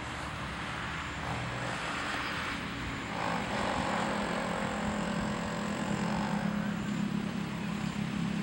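A motor vehicle engine running steadily, its low hum getting louder about three seconds in.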